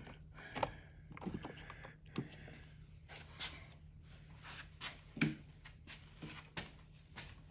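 Faint, irregular clicks, taps and scrapes of hands and a tool working wires loose from an old wall light switch that are fastened on tightly, with a slightly louder knock about five seconds in.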